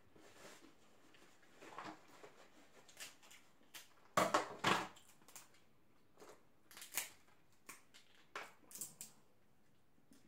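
Snow crab leg shells being cracked and snapped apart by hand: a scatter of short sharp cracks, the loudest cluster about four seconds in.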